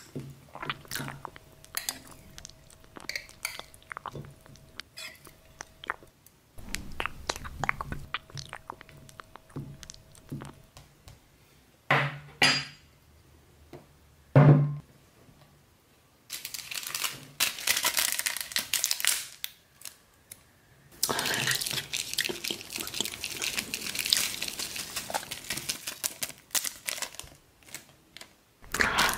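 A metal spoon scraping and clinking against a glass jar and a china plate as thick chili sauce is spooned onto noodles, with two louder knocks in the middle. Then a plastic packet rustles in two long spells as sesame seeds are shaken out of it onto the food.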